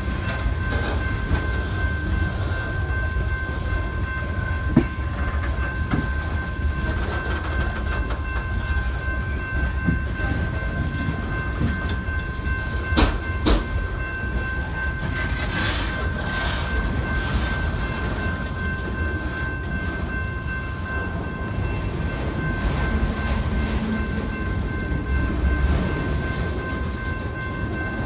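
Freight train cars rolling past: a steady low rumble with wheel clatter over a steady high ringing tone, and a couple of sharp clanks about thirteen seconds in.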